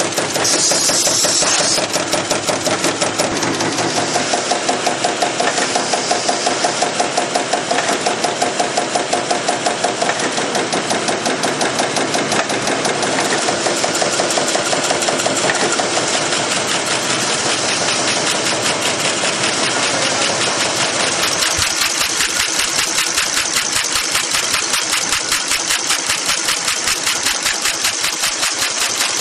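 Can-end production line machinery running: a fast, even mechanical clatter of many strokes a second as metal can ends feed through the machines. About three quarters of the way through the beat changes to a sharper, more clipped pulse.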